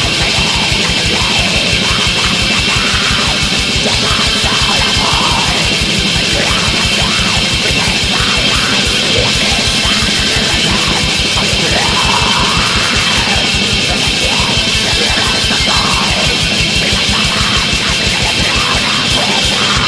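Raw black metal demo recording: a dense wall of distorted guitars over fast, evenly pounding drums, loud and unbroken.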